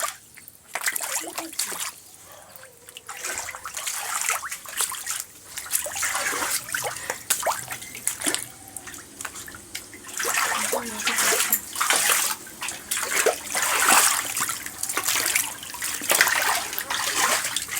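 Floodwater running and splashing across a waterlogged road, an uneven rushing and splattering that grows louder about ten seconds in.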